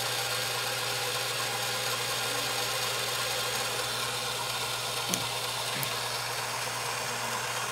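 Small electric motor of an egg-decorating spinner running with a steady hum as the egg turns. Two light clicks about five and six seconds in.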